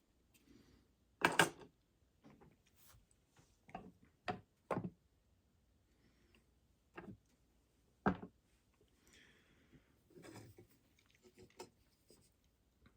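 Scattered sharp plastic clicks and knocks, with light rubbing, from the parts of a disassembled Philips/Norelco HS550 electric shaver being handled. The loudest click comes about a second in, and the rest are spread a second or two apart.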